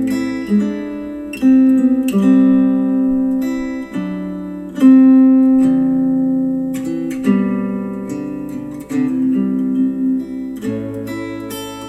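Acoustic guitar music played back through a JBL Charge 4 Bluetooth speaker: plucked chords struck every second or two, each ringing and fading away.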